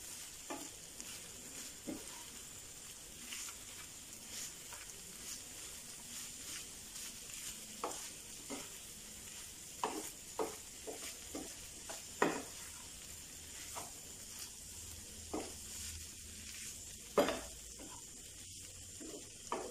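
Wooden spatula stirring and scraping a thick mash of chana dal, yam, raw banana and coconut around a nonstick frying pan, in irregular strokes about once a second, a few louder than the rest. Under it a faint steady sizzle as the curry's remaining moisture is cooked off.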